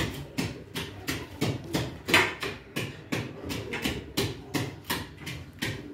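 A long spatula stirring chicken pepper soup in a large metal cooking pot, knocking against the pot with short sharp strokes, about three a second.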